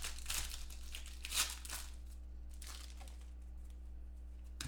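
Foil wrapper of a 2014 Panini Contenders card pack being torn open and crinkled for about the first two seconds, then quieter handling of the cards with a light click near the end. A steady low hum runs underneath.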